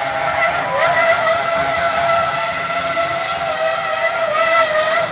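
Red Bull RB6 Formula One car's Renault V8 engine running at high revs as the car spins donuts, with a brief dip in pitch under a second in before it holds high and fairly steady.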